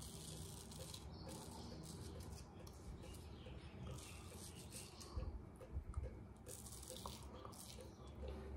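Straight razor scraping through lathered stubble in several short, faint, raspy strokes, with a few low thumps about five to six seconds in.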